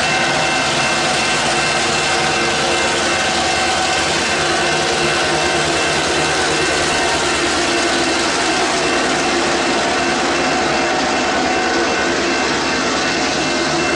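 Two diesel-electric locomotives pulling a loaded spoil train, their engines working hard and loud enough to shake the camera as they pass close by. Near the end the loaded wagons roll past on the track.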